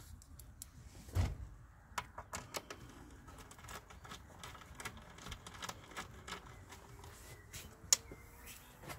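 Hands working at a car's throttle body in the engine bay: scattered light clicks and taps of small metal and plastic parts being handled, with a dull knock about a second in and a sharp click near the end.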